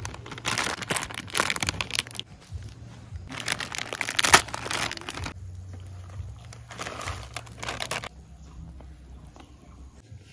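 Plastic instant-ramen packet being crinkled and torn open, in three bursts over the first eight seconds, the loudest about four seconds in.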